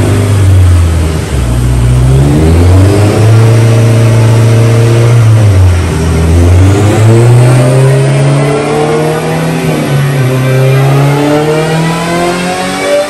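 Turbocharged Honda S2000 four-cylinder engine running on a chassis dyno. The revs drop and jump up with gear shifts several times in the first six seconds, then climb steadily in one long pull to the end.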